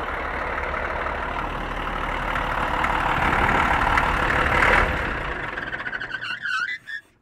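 Caterpillar 666 scraper's diesel engine running loud up close, growing louder to a peak about five seconds in, then easing off.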